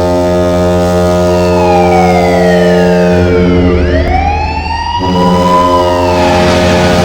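NHL arena goal horn of the Anaheim Ducks blaring a steady, low chord of several tones. About a second in, a siren-like tone glides down in pitch, then swoops back up and levels off a little after the middle.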